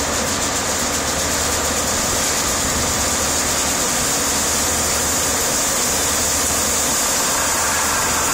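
Steady hiss of pressurised water jetting from the bottom of a coiled-tubing drilling mud motor during its function test, pumped at about 2 barrels a minute and 2,000 psi. A steady engine rumble runs underneath.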